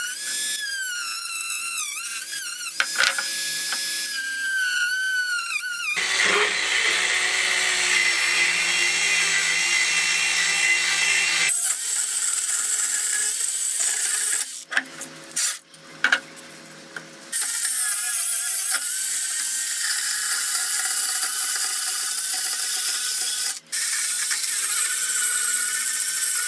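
A handheld power tool works a bamboo root. For the first few seconds it gives a high whine that wavers in pitch, then a louder, rougher noisy sound. It cuts out for a few seconds about halfway and again for a moment near the end.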